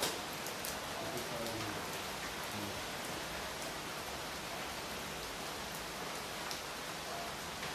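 Steady rain falling, with a few sharper drop hits scattered through it.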